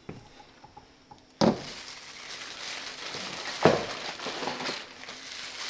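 Plastic packaging crinkling and rustling as it is handled, starting suddenly about a second and a half in, with another loud rustle near the four-second mark.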